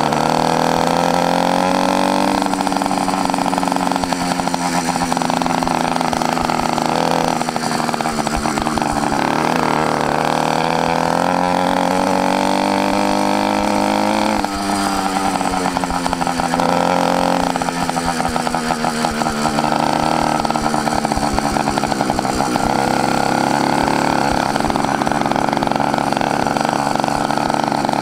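YD100 two-stroke bicycle engine kit running with its muffler cap removed: ridiculously loud, its pitch climbing and falling as the throttle is opened and shut, with a sharp drop about halfway through. With the cap out it four-strokes at low revs and bogs in the mid range.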